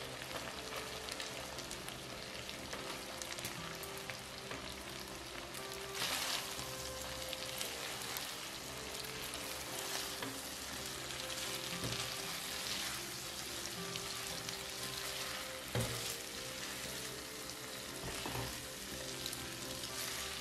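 Shrimp in a spicy butter-garlic sauce sizzling in a nonstick frying pan as cooked spaghetti is tossed through it with tongs. The sizzle gets louder about six seconds in, and there are a few sharp knocks of the tongs on the pan.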